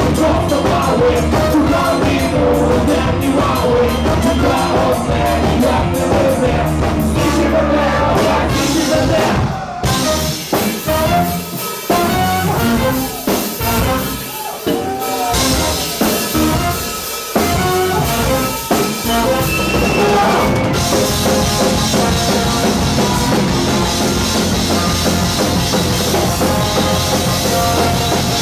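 Live rock band playing, with keyboard, electric guitar and drum kit. About ten seconds in, the music thins into a sparser, broken stretch; about twenty seconds in, the full band comes back in with cymbals ringing.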